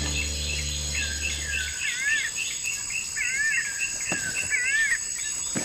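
Forest ambience: whistled calls repeated again and again, each a short wavy rise and fall, over a steady high insect drone.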